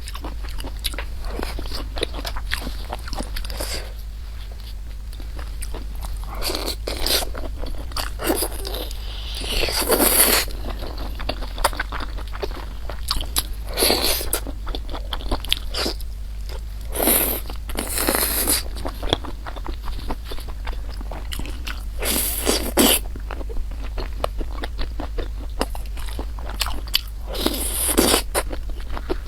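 Close-miked eating of rice and Chinese noodles: steady wet chewing and small mouth clicks, with louder biting or slurping bursts every few seconds.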